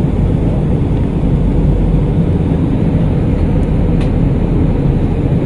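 Steady in-flight cabin noise of a jet airliner: turbofan engines and rushing air, an even, unbroken noise heaviest in the low range.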